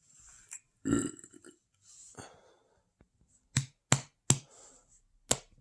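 A person burping on a somewhat full stomach: one burp about a second in, then a run of four short, clipped burps in the second half.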